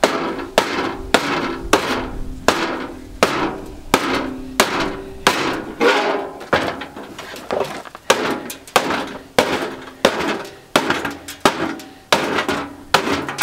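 Repeated hammer blows, about three every two seconds, inside a clothes dryer's cabinet, breaking up its plastic blower fan to get at the nut behind it. Each blow ends in a short metallic ring.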